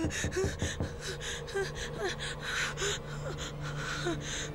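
A woman breathing in rapid, ragged gasps, the hard breathing of a panic attack.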